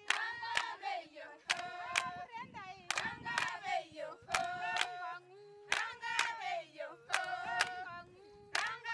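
Group of women singing unaccompanied, with a double hand clap about every one and a half seconds keeping the beat.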